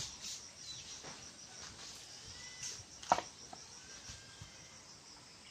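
A ceramic bowl set down upside down over another bowl: one short clink with a brief ring about three seconds in, among a few softer knocks. Faint, high, evenly pulsing insect chirping runs underneath.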